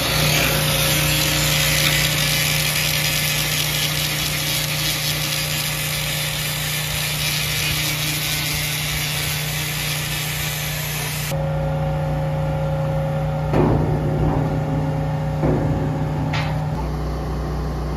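Crane engine running steadily with a low hum. A loud broad hiss over it cuts off suddenly about two-thirds of the way in, and a few knocks come near the end.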